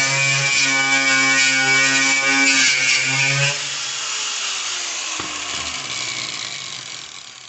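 Electric power sander running on the rusted sheet metal of a Jeep top, a steady motor hum with grinding hiss, then switched off about halfway through and spinning down with a falling whine as it fades.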